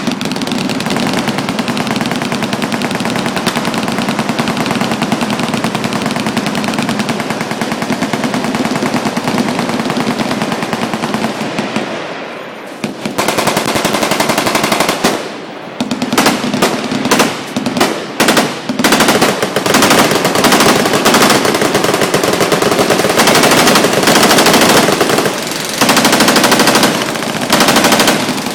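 Machine guns firing fully automatic in long, unbroken strings. The fire dips for a moment about halfway, then breaks into several short separate bursts before running on continuously again.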